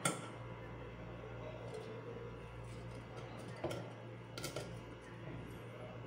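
A few faint clicks and light metallic taps as hands fit the switch and wiring back into a blender's metal motor base: one at the start, then a few more around four seconds in. A steady low hum runs underneath.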